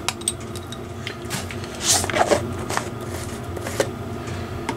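Workbench handling noises: scattered light clicks and rustles of parts and plastic containers being moved about on cardboard, with a louder scrape about two seconds in, over a steady low hum.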